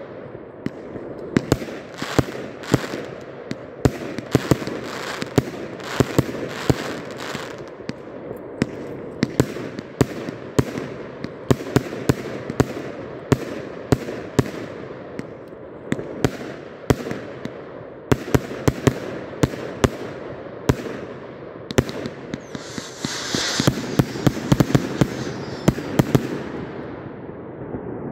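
A 100-shot firework cake firing a steady string of shots, sharp bangs about twice a second, with the stars bursting and crackling overhead. A few seconds before the end a burst of hissing crackle swells up, and then the shots thin out.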